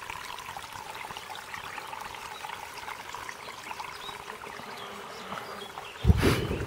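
Steady outdoor hiss scattered with small ticks and chirps. About six seconds in, wind buffets the microphone with a sudden loud, low rumble.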